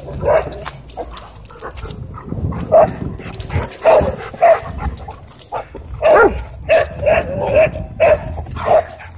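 A dog barking in short, sharp barks during rough chasing play, scattered at first and then coming in a quicker run of about two a second in the second half, over a low rumble.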